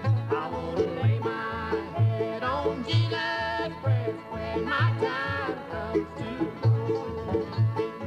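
Bluegrass recording played from a cassette tape: banjo picking over a steady bass beat, with a wavering melodic lead line.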